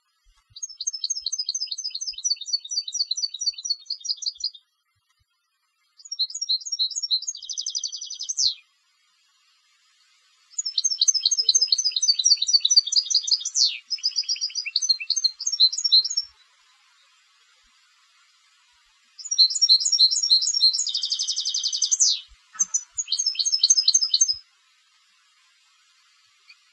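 European goldfinch singing a contest-style song: four phrases of rapid, high twittering and trills, each a few seconds long, separated by short pauses.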